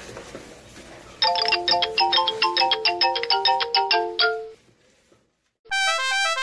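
Bright, bell-like electronic jingle: a quick run of short chiming notes for about three seconds, then after a brief pause a second chime melody starts near the end.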